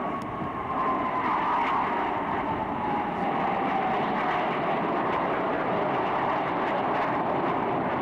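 Roar of Blue Angels F/A-18 Hornet jets flying past, with an engine whine that falls steadily in pitch as they go by. The noise swells about a second in and then holds steady.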